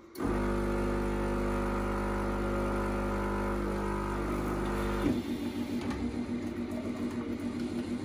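Espresso S bean-to-cup coffee machine's internal motor running with a steady hum as the machine moves its mechanism to get ready for a cleaning tablet in its group-cleaning cycle. About five seconds in, it changes to a quieter, fluttering mechanical sound.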